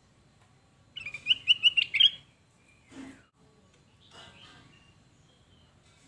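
Kutilang emas, a black-headed yellow bulbul, calling: a loud burst of about six quick, clear repeated notes about a second in, then a softer call after about four seconds. A soft thump comes in between.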